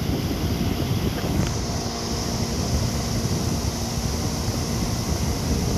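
Steady low rumbling background noise with a hiss over it, with no distinct events.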